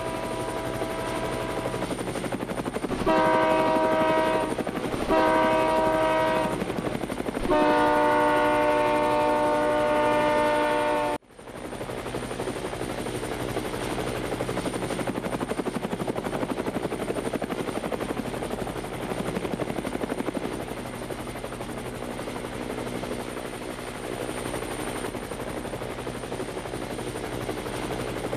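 A locomotive's multi-tone air horn sounds four blasts, the first fainter and the last longest, over the steady buzz of a Yuneec quadcopter's propellers. About 11 s in, the sound cuts off abruptly, then the quadcopter's propeller buzz continues alone.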